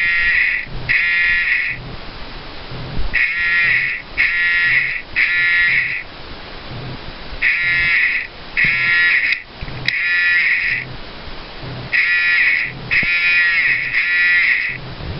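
Homemade fire alarm horn sounding the code 3 (temporal-three) evacuation pattern: three short buzzy blasts, a pause, then three more, repeating about every four and a half seconds.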